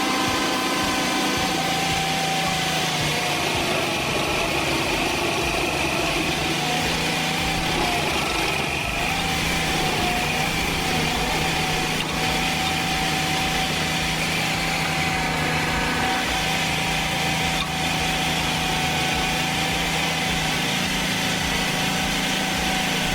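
Stump grinder's small engine running at a steady speed, with a steady high whine over the engine note.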